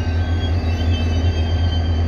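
Diesel-electric locomotive engine running with a deep, steady hum. A faint, wavering high tone sits above it.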